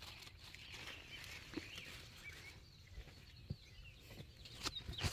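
Faint outdoor ambience with distant birds chirping now and then, and a few soft clicks.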